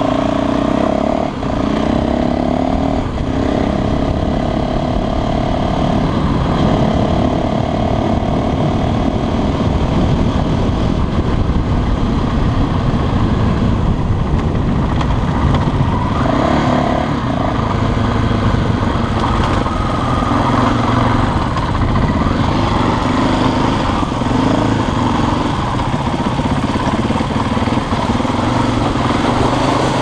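Husqvarna dirt bike engine running under way, its pitch rising and falling with the throttle and gear changes, over a steady rough low rumble.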